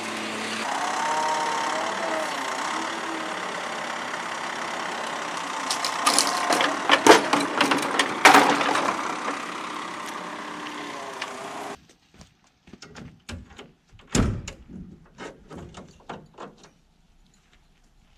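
Vehicle engine running with steady mechanical noise, broken by a run of loud clattering knocks about six to eight seconds in. The engine noise cuts off suddenly about twelve seconds in, leaving scattered light knocks and clicks.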